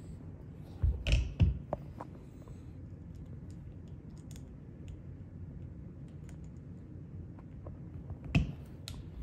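Small Allen key and fingers working the grip screws on a paintball marker's metal frame: a cluster of sharp clicks and knocks about a second in, a couple of lighter ticks after, and two more clicks near the end, over a steady low room hum.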